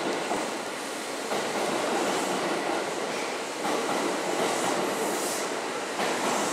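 Kintetsu 2800-series electric train running slowly into a platform as it brakes to a stop, with steady wheel-on-rail noise and some rattling over the rail joints.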